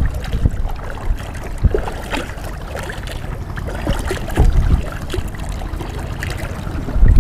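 Water splashing and trickling around a small boat on a river, with irregular gusts of wind rumbling on the microphone.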